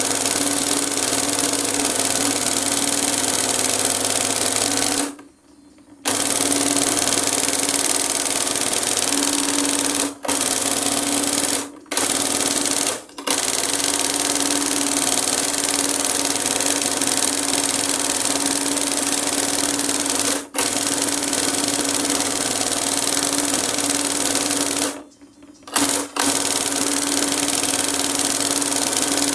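Industrial embroidery sewing machine stitching gold cord at high speed: a steady, loud mechanical whirr with a constant hum. It cuts out abruptly twice for about a second and a few more times for an instant.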